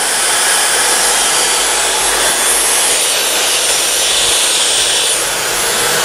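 Dyson Supersonic hair dryer running on its lowest setting with the diffuser attachment fitted: a steady rush of blown air that holds an even level throughout.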